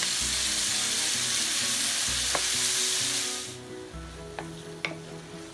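Chicken, onion and tomato sizzling as they are stir-fried in a stainless steel waterless pot, with a wooden spatula scraping through them. The loud sizzle drops off sharply about three and a half seconds in, leaving quieter frying and a few sharp clicks of the spatula against the pot.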